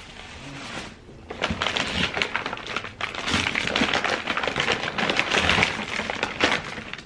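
Plastic bag crinkling and rustling as it is handled and opened: a dense stream of small sharp crackles, starting after a short lull about a second in and pausing briefly around three seconds.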